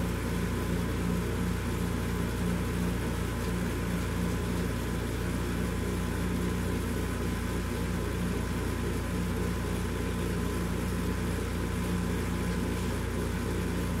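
Steady hum of workshop machinery running, a constant low drone with a faint high whine above it.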